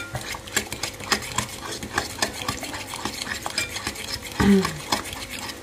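Metal spoon rapidly stirring and beating a thick garlic paste in a cut-glass bowl, with quick irregular clicks and scrapes of the spoon against the glass. The garlic, salt and sunflower oil are being whipped into a creamy mujdei emulsion.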